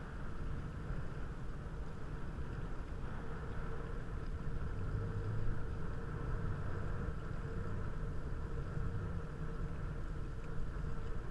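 Steady rush of wind and water while riding a kite hydrofoil, with a low rumble and a faint steady hum.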